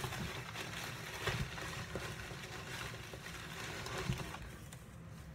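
Rustling and scraping of hands rummaging through a cardboard box of packing material, with scattered small clicks and a couple of light knocks.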